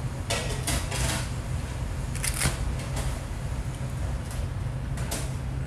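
Short rustles and clicks of wooden chopsticks, lettuce leaves and plastic takeout containers as slices of raw octopus are picked up and wrapped in lettuce, over a steady low hum. The bursts come near the start, about two seconds in, and again about five seconds in.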